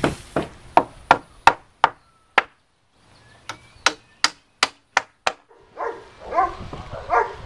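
A hammer driving nails into wooden fence boards: two runs of sharp, evenly spaced strikes, about three a second, with a short pause between them. Dogs bark and yelp near the end.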